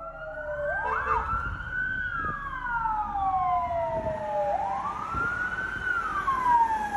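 Sirens of a security escort's vehicles wailing, each slowly rising and falling in pitch, with two sirens overlapping out of step. The sound swells up in the first second, over a low rumble beneath.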